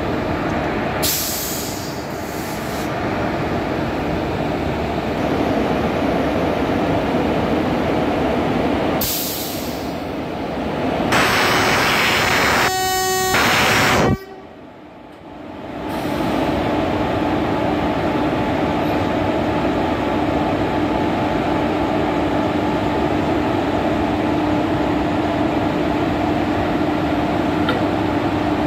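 WAP-4 electric locomotive running as it pulls a train out: a steady rumble of blowers and wheels on rail, with short hissing bursts early on. About halfway through a horn sounds for a couple of seconds and cuts off suddenly, after which a steady low hum goes on.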